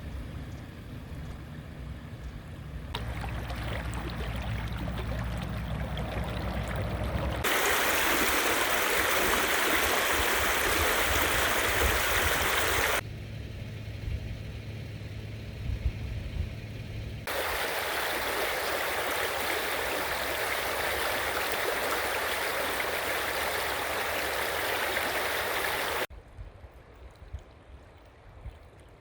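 Floodwater rushing and pouring, heard in several clips joined by abrupt cuts. The two loudest stretches are a steady, even rush of water. The quieter stretches between them carry a low steady hum under fainter water noise.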